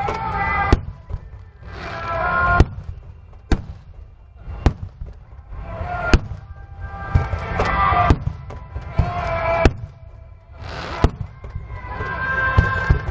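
Aerial firework shells bursting, a sharp bang every second or two, with music playing in swelling stretches between the bangs.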